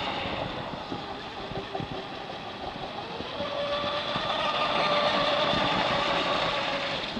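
The electric motor and propeller of a Black Jack 26 RC speedboat on a 6-cell LiPo whining steadily at speed, over the hiss of its spray. The whine fades a little in the first couple of seconds and swells again around the middle as the boat comes closer.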